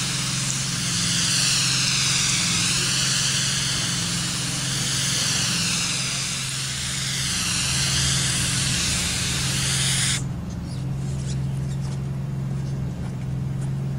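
A spray gun hissing as it sprays white coating over polyurethane foam roofing, the hiss shifting in tone as the gun sweeps back and forth; it cuts off suddenly about ten seconds in. A steady low machine drone runs underneath throughout.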